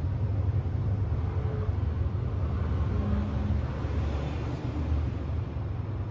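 Steady low hum and rumble inside a Nagasaki Electric Tramway 3000-series low-floor tram standing still, from its onboard equipment running while it waits.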